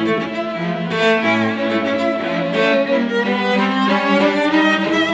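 Solo cello with a string quartet playing a quick dance passage of many short bowed notes.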